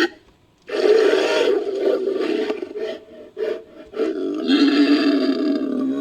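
Designed creature sound effect for a Daeodon–Hyaenodon hybrid, built from prehistoric-mammal roar effects. About a second in comes one long roar, then a few short calls, then a second long roar that falls in pitch near the end.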